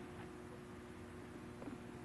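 Faint steady electrical hum over low hiss, with no distinct event apart from a couple of faint ticks near the end.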